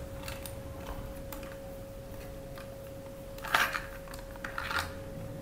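Plastic toy pieces clicking and clacking as a toy truck is handled on a plastic track, with two louder clacks a few seconds in, over a faint steady hum.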